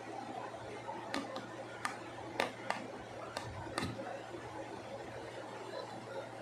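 Several short, sharp clicks and taps in the first four seconds, over a steady low hum.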